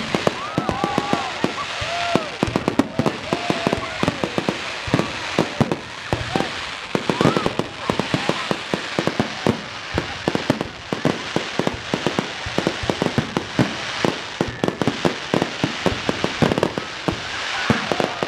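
Fireworks going off in quick, dense succession: many sharp bangs and crackles throughout, with a few short rising-and-falling whistling tones in the first several seconds.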